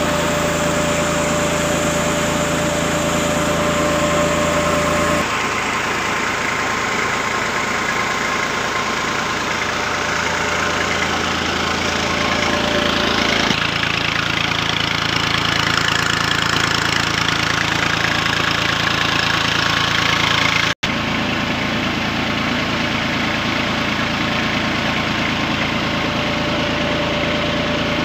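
Massey Ferguson 240 tractor's three-cylinder diesel engine running steadily under load, turning a drive shaft and belt pulley that power a flour mill. The tone shifts abruptly a couple of times, with a momentary dropout about two-thirds through.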